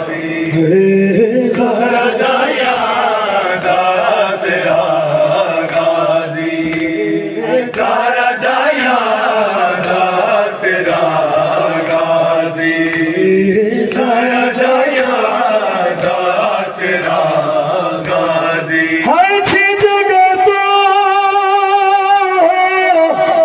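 A male voice chanting a Punjabi noha (Shia lament) through a microphone and PA, with no instruments, in long drawn-out melodic lines. Near the end a long note is held with a quick wavering vibrato.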